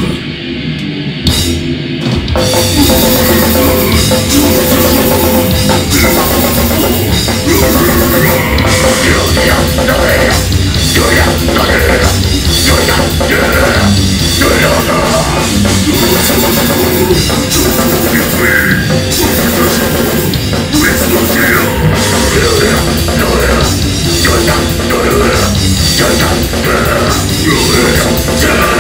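Live heavy metal band playing loud: pounding drum kit, distorted electric guitars and bass, with vocals over the top. The full band comes in about two seconds in.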